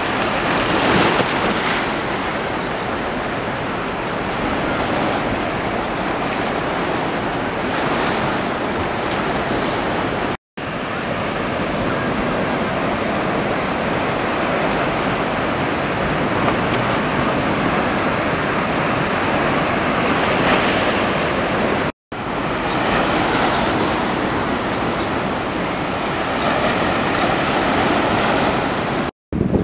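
Ocean surf breaking and washing up onto a sandy beach, a steady rushing wash that swells and falls with the waves. The sound drops out briefly three times, about a third and two thirds of the way through and just before the end.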